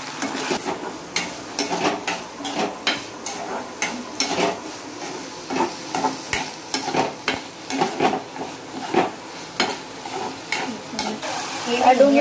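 Steel spatula scraping and knocking irregularly against a kadhai as chopped onions are stirred over a steady oil sizzle: onions frying in a spice tempering of bay leaves and dried red chilli.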